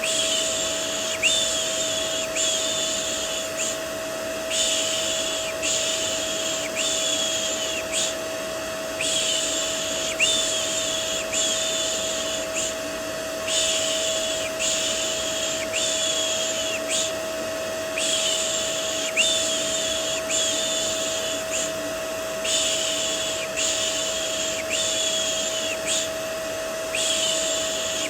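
Vacuum cleaner running as steady white noise with a constant motor hum. Over it, a voice shushes "shh, shh" to soothe a baby, in long hushes about a second each, coming in runs of two or three with short pauses between runs.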